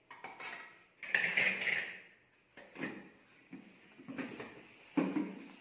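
A plastic packet rustling as spice is tipped from it into a steel mixer-grinder jar, followed by a few light clicks and knocks as the jar is handled.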